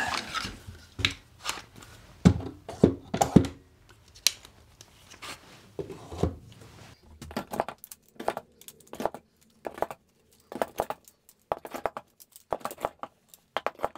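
Quick-release bar clamps being hung on a wooden wall rack: an irregular run of knocks and clicks as the clamps' steel bars and plastic jaws bump the rack and each other. The knocks are heavier in the first few seconds, and lighter, scattered clicks follow.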